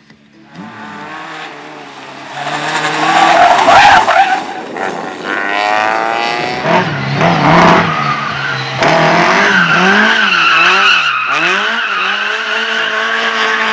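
Slalom race car driven hard through the course: the engine revs rise and fall again and again, with quick up-and-down swings in pitch as it weaves, and the tyres squeal through the turns.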